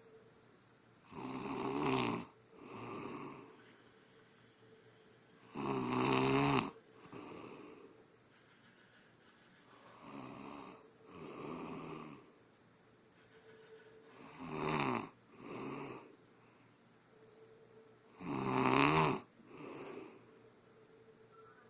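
A woman snoring in her sleep, a loud rattling snore about every four seconds, each followed by a softer one.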